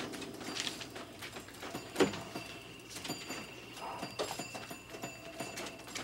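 Arcade ambience: electronic beeps and tones from video game and pinball machines, with scattered clicks and knocks. A sharp knock comes about two seconds in, and a steady high electronic tone holds through the second half.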